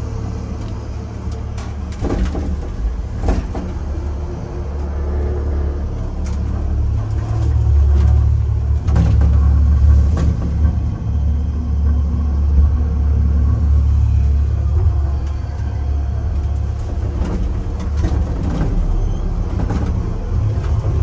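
A vehicle's steady low rumble as it moves, with scattered sharp clicks and knocks, growing somewhat louder midway.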